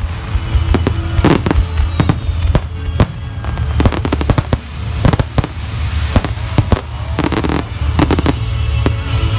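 Aerial firework shells bursting overhead in rapid succession: dozens of sharp bangs and crackles, easing briefly about four and a half seconds in before picking up again.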